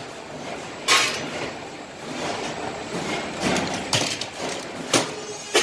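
Metal clanking from steel profile pieces being worked at a hand-lever bending tool: a few sharp knocks, one about a second in and several more near the end, over a lighter clatter of metal.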